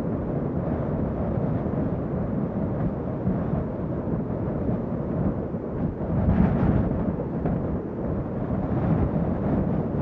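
Strong wind blowing in a steady, low rush, with a gust swelling about six seconds in.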